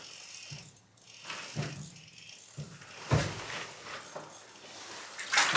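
A few short knocks and rustles, the strongest about three seconds in: handling noise as a walleye is pulled up through an ice-fishing hole and landed.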